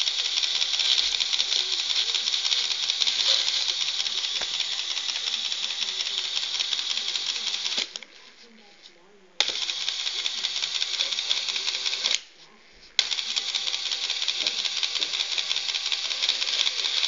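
Self-built Lego Technic paper shredder running with a fast, dense plastic rattle. It stops twice, for about a second and a half just before the 8-second mark and for under a second a little after 12 seconds, then starts again.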